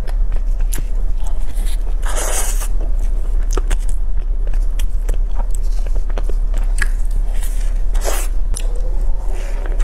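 Close-miked eating sounds: bites into a crisp pastry tart shell topped with jelly and cream, with crackling crunches and chewing between bites. There are louder bites about two seconds in and again about eight seconds in, over a steady low hum.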